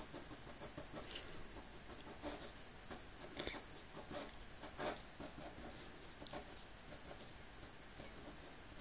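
Faint scratching of an ink pen on paper in short, irregular strokes while inking a drawing, with a few louder strokes in the middle.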